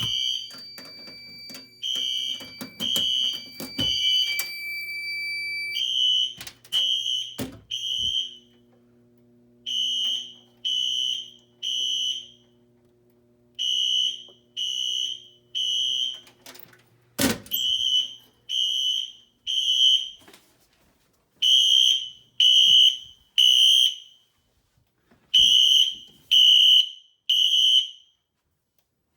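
Fire alarm horns on Wheelock sync sounding the temporal-3 evacuation pattern: three beeps, a pause, and repeat every four seconds, meaning the system is in alarm after a pull station was pulled. A steady high tone stops about six seconds in, and there are a couple of sharp knocks, the loudest past the middle.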